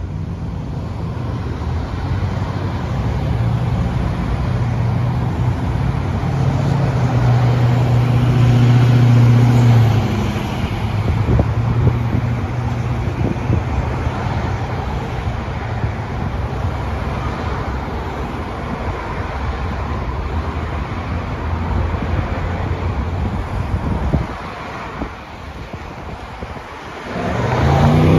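Road traffic at a busy multi-lane intersection, with cars passing steadily. A heavy engine's low drone is loudest about a third of the way in. Near the end the traffic briefly quietens, then a vehicle pulls away with its engine pitch rising.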